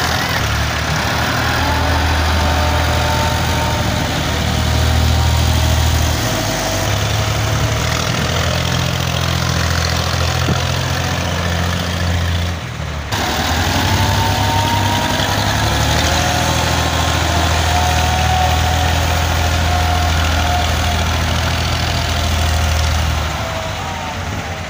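Diesel tractor engine running steadily under load while levelling earth with a dozer blade, a low drone with a faint wavering whine above it. The sound drops out briefly about halfway.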